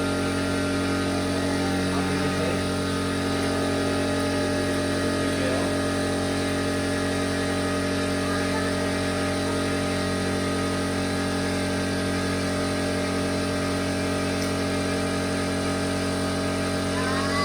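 Air compressor running with a steady drone, with an even hiss of compressed air being blown through a nozzle.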